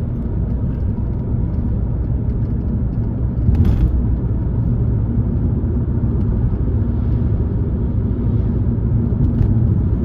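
Steady in-cabin drive noise of a 2-litre Alfa Romeo on the road: low engine and tyre rumble, with one short knock about three and a half seconds in.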